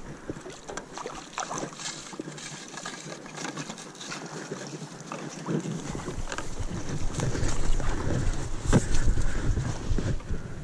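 Splashing and rustling as a landing net holding a freshly caught fish is lifted out of the river and carried through bankside brush onto the grass, with close handling knocks and scrapes. It is quieter at first and grows louder about halfway through as the net is moved onto the bank.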